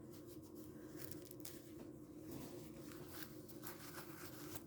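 Faint rustling and handling of a dog's cloth Velcro heat pants, over a steady low hum.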